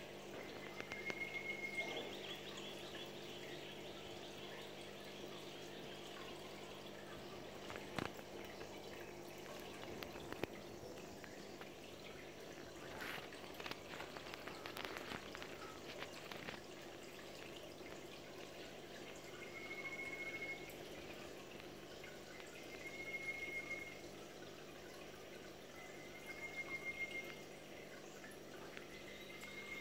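Aquarium filter running with a steady hum and faint trickling water. A few short, high chirps come and go, and there is a single sharp click about eight seconds in.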